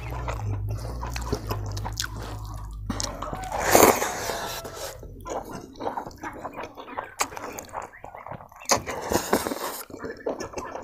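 Close-up eating sounds: wet chewing and lip-smacking of pork trotter and rice eaten by hand, with fingers squishing rice in chilli gravy. A short, louder hiss about four seconds in and again near nine seconds.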